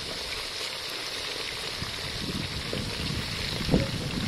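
Quail, onions and potato slices sizzling steadily in hot oil in a steel wok, with light taps and one sharp knock near the end.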